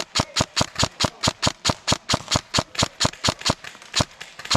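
Airsoft gun firing a steady rapid string of sharp shots, about five or six a second.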